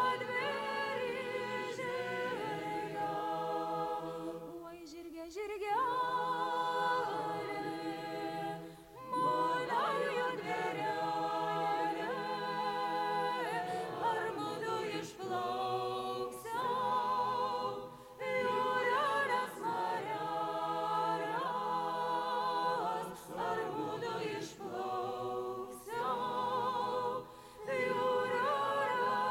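Folk ensemble singing a Lithuanian folk song as a choir, in sung lines broken by short pauses for breath.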